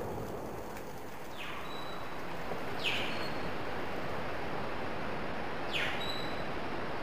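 A bird calling three times, each call a quick falling note followed by a brief high whistle, over a steady hiss of outdoor background noise.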